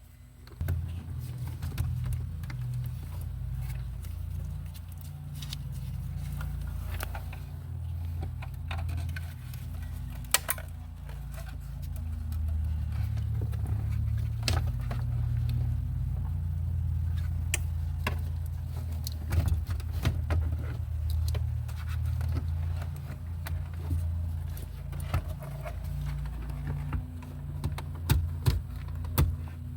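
A steady low rumble with scattered sharp clicks and light knocks, as of plastic dash trim and wiring being handled during a car radio reinstallation.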